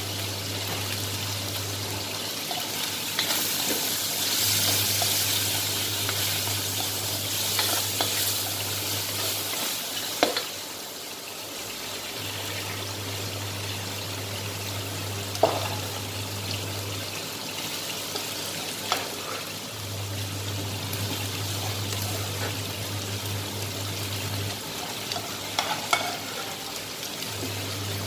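Chicken, onion and garlic sizzling in a hot wok as they are stir-fried, with a steady hiss that is loudest in the first ten seconds. A spatula knocks against the pan every few seconds.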